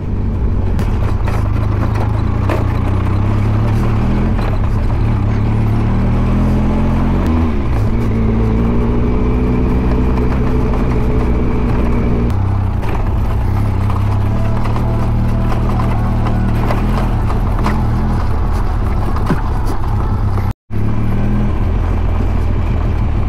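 Benelli TRK 502X parallel-twin motorcycle engine running steadily while riding over a gravel road. Its pitch dips briefly about seven seconds in, climbs again, then steps down around twelve seconds. The sound cuts out for a moment near the end.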